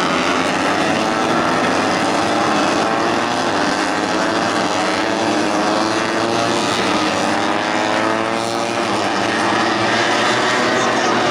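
Several tuned 150cc four-stroke underbone racing motorcycles running hard at high revs, their engine notes overlapping and rising and falling in pitch.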